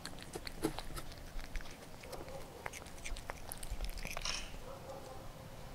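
A cat eating small pieces of fish off a tray: irregular clicks of chewing and crunching, with a brief wet lick or sniff about four seconds in.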